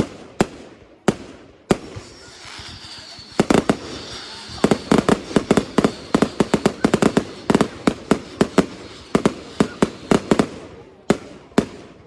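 Consumer fireworks going off in quick succession: single sharp bangs at first, then a dense run of rapid bangs over a crackling hiss through the middle, and two last bangs near the end before the display goes quiet.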